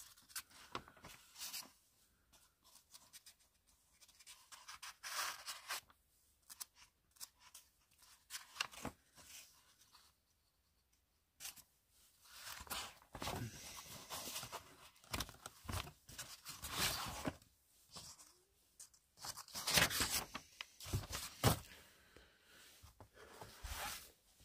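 Old paper rustling and crackling as the pages of an old document are handled and turned, in irregular bursts, with about a second of dead silence around ten seconds in.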